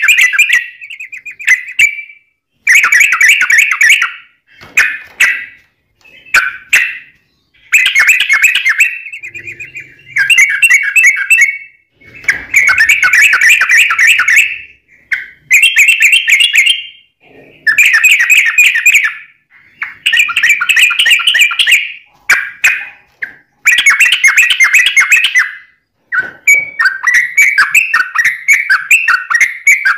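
Yellow-vented bulbul (trucuk) singing: loud, bubbly phrases of a second or two, repeated with short pauses between them, then a run of rapid notes near the end.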